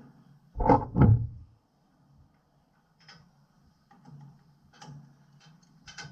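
Two loud clunks in quick succession about a second in, then lighter clicks and taps, as steel go-kart front suspension parts are handled and fitted together during a mock-up assembly.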